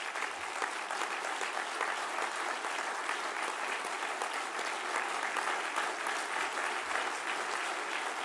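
Audience applauding: steady, dense clapping that holds at an even level throughout.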